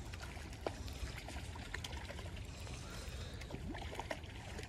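Faint water splashing from a hooked brown trout thrashing at the surface as it is reeled in. Scattered light ticks sound over a low, steady rumble.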